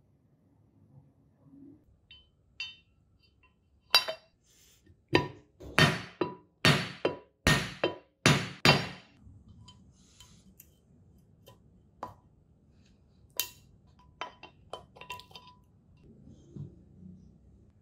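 Metal parts of a Vespa front fork hub being worked: a run of about a dozen sharp, ringing metal strikes between about four and nine seconds in, then scattered lighter metal clicks.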